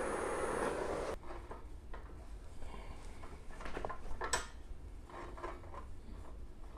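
A handheld torch flame hisses steadily on a brass bugle and cuts off about a second in. After that come scattered clinks and knocks of the brass tubing being handled and set into a steel bench vise, the sharpest a little past halfway.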